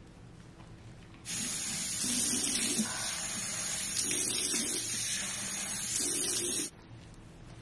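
Bathroom sink tap running, turned on about a second in and shut off suddenly near the end, with water splashing as face cleanser is rinsed off.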